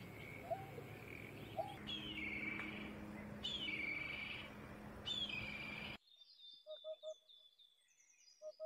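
Birds calling over a steady background hum: short hooked notes, then a run of falling chirps about every second and a half. About six seconds in, the background noise cuts off abruptly, and a few short calls and high twitters remain.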